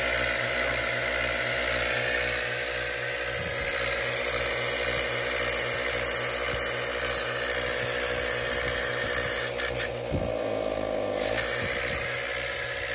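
ARB Twin 12-volt air compressor running steadily with a regular low pulse, its outlet coupler open with no hose attached. About ten seconds in, its note shifts for about a second, with a few clicks.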